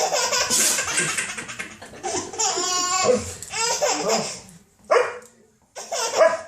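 A ten-month-old baby laughing hard in repeated belly laughs and giggles at a sneezing dog, falling quiet for about a second near the end before laughing again.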